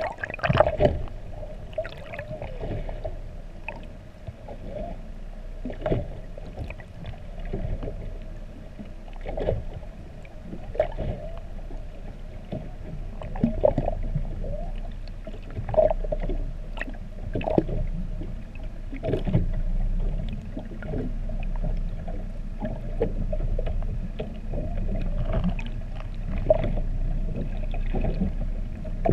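Humpback whale song heard underwater: short calls that bend up and down in pitch, one every second or two, over a steady low rumble of the sea.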